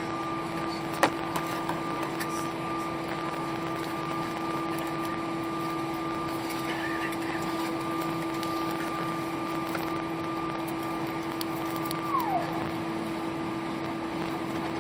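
Airbus A319 cabin noise on the ground: a steady hum with a low drone and a higher whine from the engines and air systems, and a single click about a second in. Near the end the higher whine drops in pitch and fades, typical of an engine winding down.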